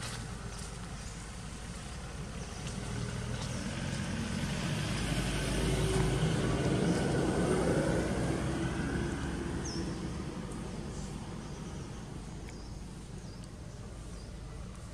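A motor vehicle passing by: a rumbling engine sound that swells over several seconds, peaks around the middle and fades away.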